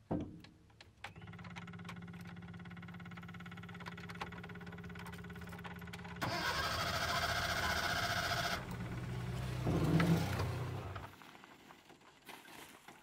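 Small carbureted van engine running, with louder cabin and road noise in the middle and a rise about ten seconds in before the sound drops away near the end. The crew puts the van's trouble down to dirt from contaminated fuel getting into the carburetor.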